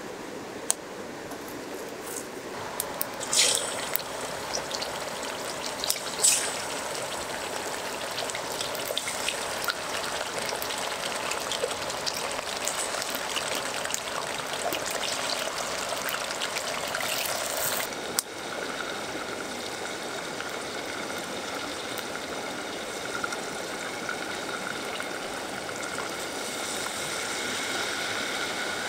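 A river flowing steadily, with small crackles from a wood campfire and two sharp metal clinks a few seconds in as the kettle and pot are set on the grill. In the second half a thin steady tone joins the water noise.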